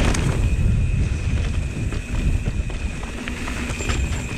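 Mountain bike rolling fast down a dirt trail, heard from a camera mounted on the rider: wind buffeting the microphone and tyres rumbling over the ground, with frequent clicks and rattles from the bike over rough spots. A thin, steady high buzz runs underneath.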